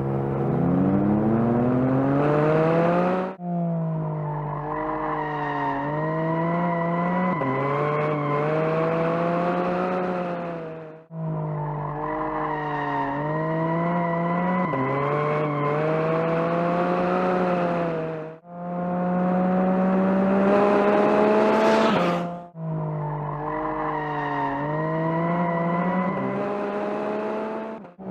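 Naturally aspirated 4.0-litre flat-six of a 2022 Porsche 718 Cayman GT4 RS driven hard on a track: revs climb steadily under acceleration, then dip and climb again through corners, with tyre squeal. The sound breaks off abruptly four times.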